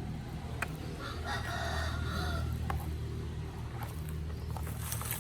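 A rooster crowing once, about a second in, over a steady low hum and scattered light clicks.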